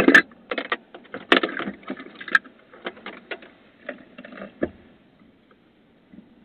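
Someone rummaging through a pickup truck's cab: a quick, irregular string of clicks, knocks and rustling that stops about five seconds in.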